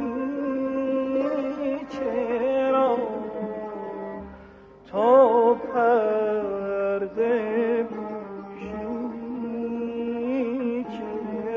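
Persian classical music in the Shur mode: an ornamented melodic line with quick wavering turns over a steady low tone. It breaks off briefly about four seconds in, then comes back loudly.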